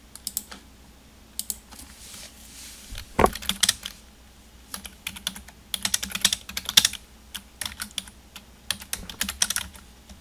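Computer keyboard typing: irregular bursts of key clicks, with one heavier knock about three seconds in.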